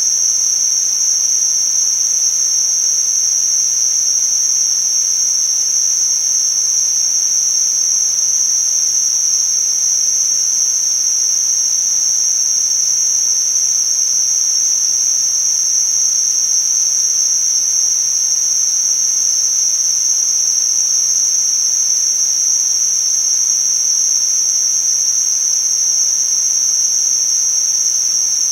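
Tinnitus-masking noise: a steady, high-pitched hiss held in one narrow pitch band, over a faint, wider hiss, with no pulsing or change.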